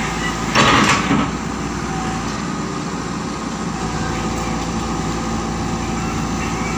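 Tata Hitachi excavator's diesel engine running steadily under work, with a brief loud rushing noise a little over half a second in.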